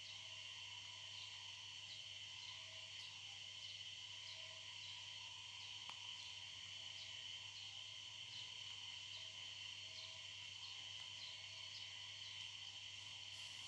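Faint steady background hiss with a low hum, and faint small high ticks about once a second.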